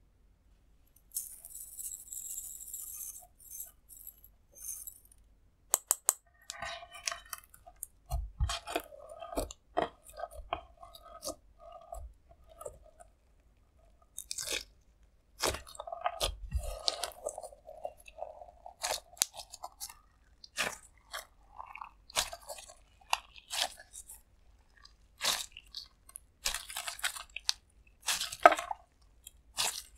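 Clear slime being squished and stretched by hand with lipstick mixed in: irregular sticky clicks, crackles and wet squelching pops. A short soft hiss comes about a second in, before the clicking sets in.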